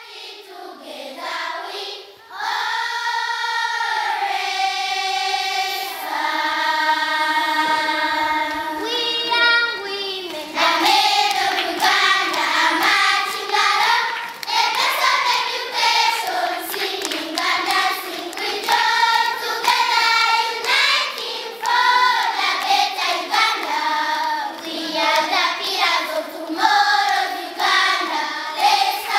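A choir of schoolchildren singing together: long held notes at first, then from about ten seconds in a quicker, rhythmic song with hand claps.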